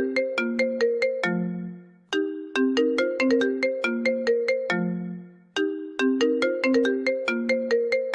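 An iPhone ringtone playing: a short melody of quick, bright notes over a low held note. The phrase fades away and starts again about every three and a half seconds.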